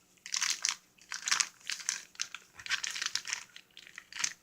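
Plastic Ziploc bag crinkling in irregular bursts as it is handled and folded over.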